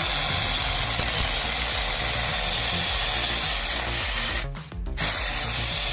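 Steady rasping noise of a machine cutting wood, with a low hum beneath it. The sound cuts out briefly about four and a half seconds in, then resumes.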